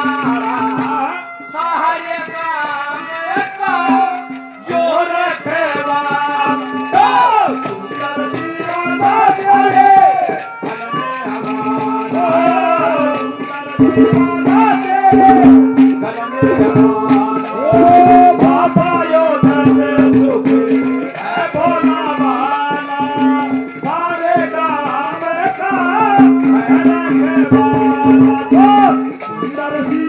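Live Haryanvi ragni music: a male voice singing a wavering melody over a steady held note, with hand-drum and rattle percussion.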